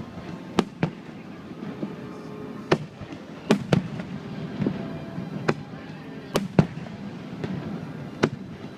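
Fireworks display: firework shells bursting in about ten sharp bangs at irregular intervals, some in quick pairs, over a low background of music and voices.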